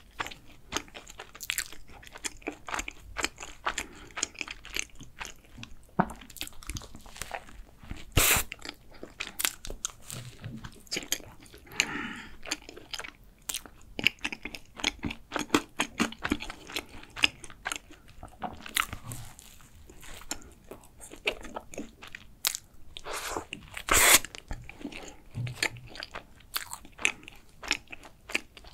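Close-miked biting and chewing of a chocolate-coated, milk-cream-filled croissant: crisp crunching and crackling of the flaky pastry and its chocolate shell. Two bites stand out as loudest, one about eight seconds in and one a few seconds before the end.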